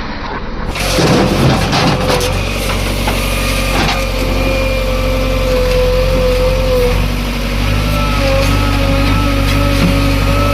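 Heavy diesel machinery engine running at a steady speed, with a wavering whine over it. A short burst of clatter comes about a second in.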